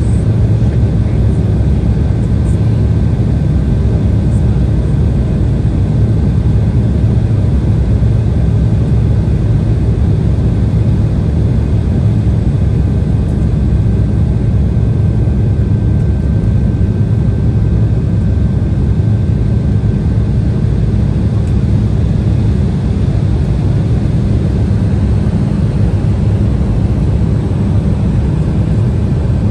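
Steady cabin noise inside an Embraer E175 on approach: the rush of airflow and the drone of its GE CF34-8E turbofan engines. A faint thin tone runs over it and stops about two-thirds of the way through.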